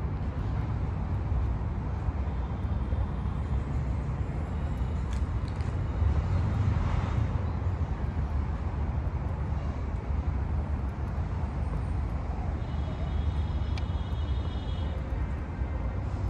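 Steady low outdoor rumble, like traffic or wind, that swells briefly about six to seven seconds in.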